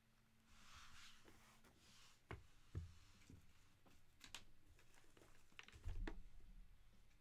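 Faint handling of a shrink-wrapped trading-card hobby box: plastic wrap rustling as it is picked up, then a few light taps and knocks of the cardboard box being handled.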